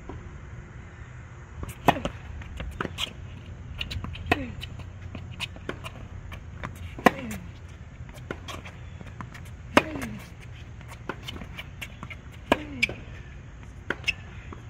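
Tennis rally on an outdoor hard court: racquets striking the ball every couple of seconds, the loudest hits trailing off in a short falling ring, with lighter knocks from the ball bouncing and the far player's shots in between.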